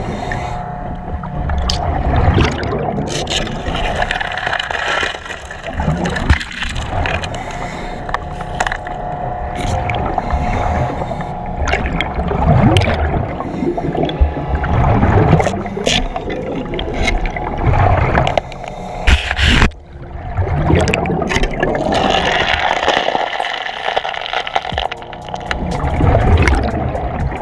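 Diver breathing inside a Kirby Morgan helmet underwater: the demand regulator hisses, then exhaust bubbles rumble out, in surges every few seconds over a steady hum.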